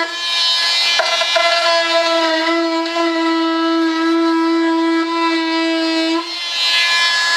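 Handheld high-speed rotary tool with a cutting disc running at a steady high-pitched whine while cutting a composite wing skin. The pitch shifts briefly about a second in, and the whine fades out about six seconds in.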